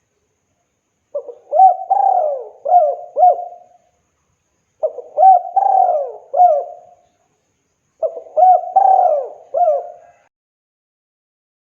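Spotted dove cooing: three repeated song phrases, each a short run of rising-and-falling coo notes, a couple of seconds apart.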